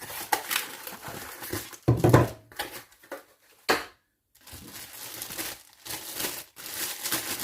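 Plastic packaging crinkling and rustling as it is handled, with a heavy thump about two seconds in and a sharp click a little later.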